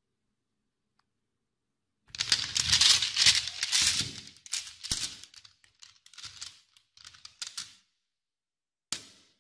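Large black magnetic balls clicking and clacking against each other as a hand drags them across a tabletop and snaps them together into a cluster. It starts about two seconds in as a dense clatter, thins to scattered clicks, and has another short burst near the end.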